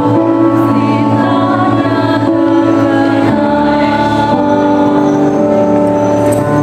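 Choir of mixed student voices singing in harmony, holding long notes that change pitch about every second, over a steady low drone.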